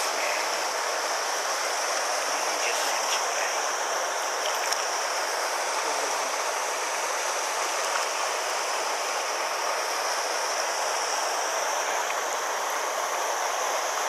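Small mountain stream rushing steadily over a low rocky cascade into a pool, as an even hiss of running water.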